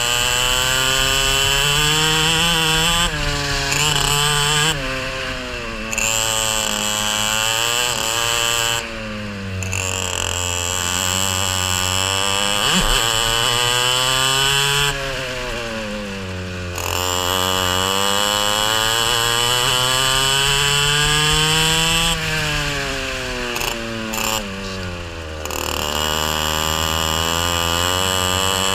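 Racing kart engine heard onboard at race speed. Its note climbs as the kart accelerates and drops away sharply when the throttle lifts for corners, about four times over.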